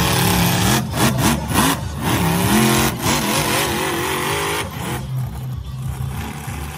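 Monster truck engine revving up and down over and over, its pitch rising and falling; it turns quieter about five seconds in.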